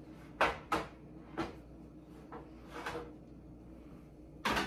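Metal knocks and clanks from an oven's wire rack and a baking pan as the pan is slid into the oven: a few sharp knocks in the first second and a half, and a louder clatter near the end.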